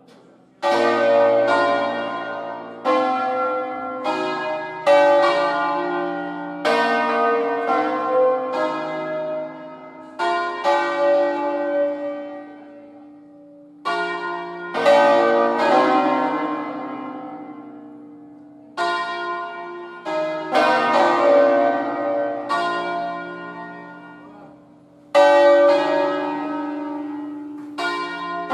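Full peal of a ring of five hand-swung church bells tuned in B-flat, cast in 1859, swinging full circle on their wheels. The bells strike in overlapping rounds, each stroke leaving a long ring. Three times the strikes pause briefly, so the ringing dies away before the next round starts.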